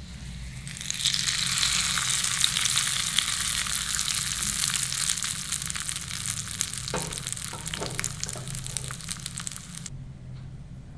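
Hot oil tempering (tadka) of dried red chillies and curry leaves sizzling and crackling, setting in about a second in and stopping suddenly near the end. A few soft knocks come in the second half.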